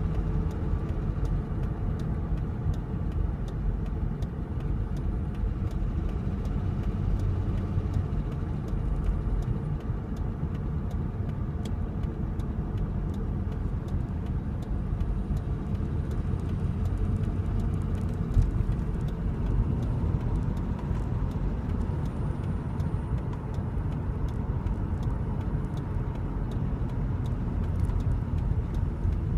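A car driving: steady engine and road rumble.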